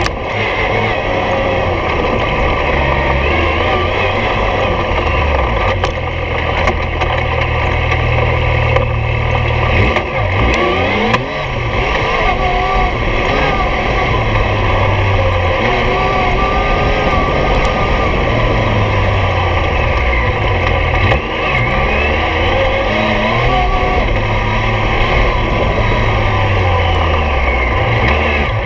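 Yamaha YXZ1000R UTV's three-cylinder engine running under load while driving, its pitch rising and falling with the throttle, with a few brief drops in level about ten and twenty seconds in.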